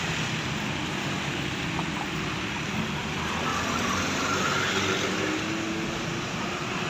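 Steady road traffic noise of vehicles passing, with one engine's hum rising a little in the middle.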